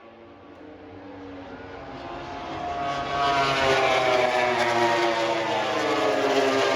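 An aircraft engine passing overhead, growing louder about two seconds in, its pitch falling slowly as it goes by.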